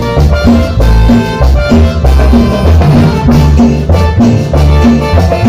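Cumbia band music: a steady repeating bass line and percussion beat with shaken rattle percussion and held melody notes over it.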